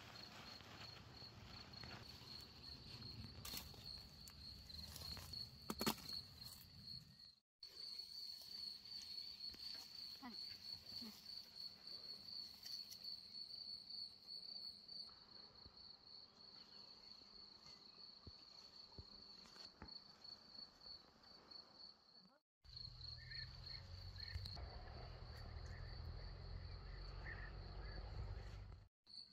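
Crickets chirping in a steady, fast-pulsing high trill that drops out briefly three times. There are a few knocks in the first six seconds and a low rumble near the end.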